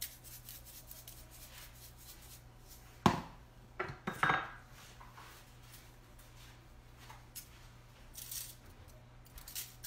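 Salt and pepper shakers shaken over raw salmon fillets in a foil-lined pan: soft scattered rattles and sprinkles, with a sharp knock about three seconds in and a run of quick faint ticks near the end. A faint steady hum sits underneath.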